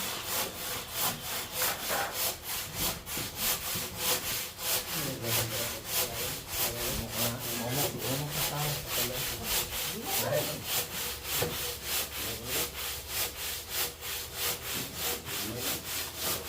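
Hand saw cutting through a lightweight wall panel in steady back-and-forth strokes, about three a second, finishing a cut that a grinder had only scored part way.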